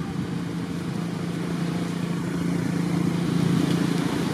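A motor engine running steadily with a low drone, growing louder to a peak about three seconds in and easing slightly near the end.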